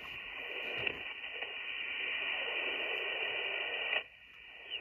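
Icom IC-705 transceiver's receiver output while being tuned down the 160 m band in LSB: a steady hiss of band noise with faint signals passing through. About four seconds in, the noise drops away sharply for most of a second.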